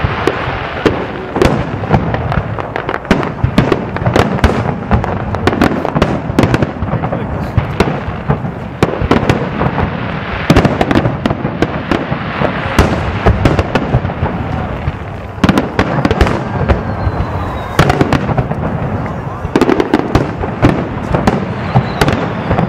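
Fireworks display with aerial shells bursting in a dense, irregular barrage, several bangs a second with no break between them.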